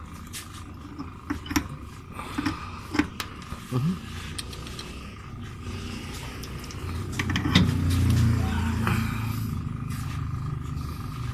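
Light metal clicks and taps as the greasy parts of a car's steering tie rod are handled, then a low rumble builds about seven seconds in and stays loud.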